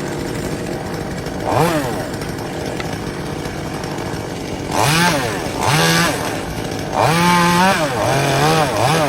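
Chainsaw engine idling and being revved in repeated bursts: a short rev, two more about five to six seconds in, a longer held rev near seven seconds, then a quick series of blips at the end.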